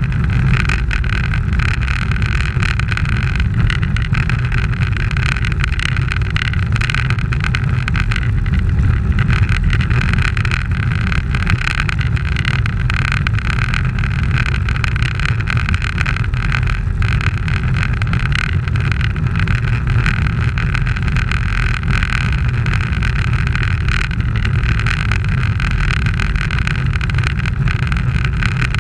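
Steady wind buffeting and road rumble on a camera travelling with a bicycle at racing speed, with tyre noise on the asphalt and no changes throughout.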